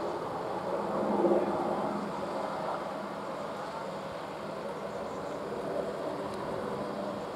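Military helicopter flying past, a steady rotor and engine drone that swells briefly about a second in.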